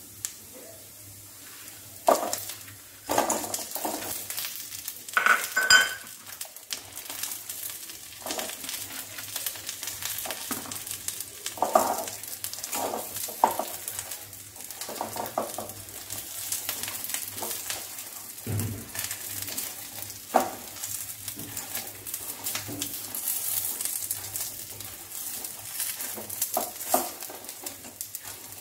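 Fried chicken pieces being stirred and tossed in a kadai with sizzling oil, curry leaves and garlic. A spatula knocks and scrapes against the pan again and again over a steady sizzle.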